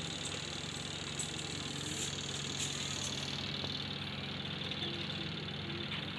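A motor running steadily, a low even hum.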